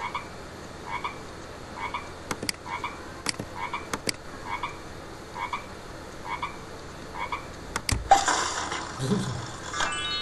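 Frog croaking sound effect, a short croak repeating about once a second, with a few sharp clicks among them. About eight seconds in comes a louder rushing burst, then a short chime near the end.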